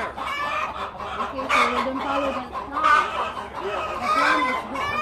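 A flock of chickens clucking and calling, many calls overlapping, with louder calls about one and a half, three and four seconds in.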